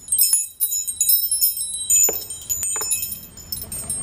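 Wind chimes ringing: light, high-pitched metal tones struck irregularly, several at a time, each ringing on and overlapping the next.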